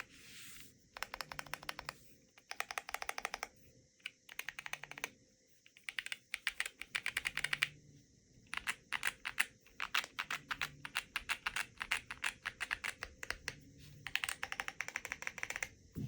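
Chilkey Foxy65 mechanical keyboard with pre-lubed Sprout Green tactile switches being typed on: rapid keystroke clicks in bursts of a second or two, with short pauses between them.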